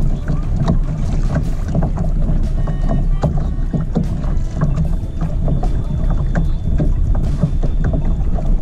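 Wind rumbling on the microphone aboard a fishing kayak, with water lapping and knocking irregularly against the hull.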